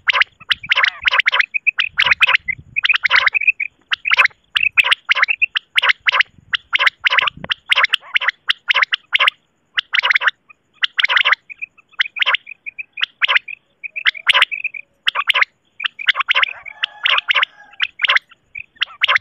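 Recorded common quail (batair) calls, played as a hunting lure: short calls fired in rapid runs with brief pauses between them, and quick strings of thin, high notes in between.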